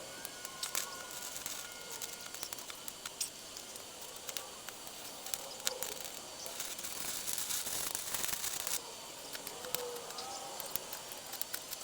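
Electric arc welding on the press frame: a steady crackling hiss with scattered sharp pops, growing brighter for a couple of seconds midway.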